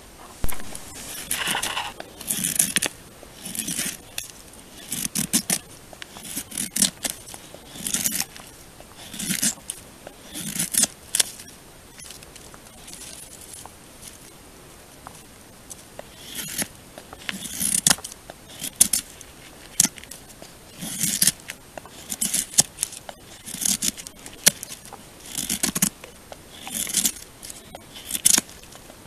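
Knife blade shaving thin curls down a wooden stick to make a feather stick: a run of short scraping strokes about one every second or so, with a pause of a few seconds near the middle.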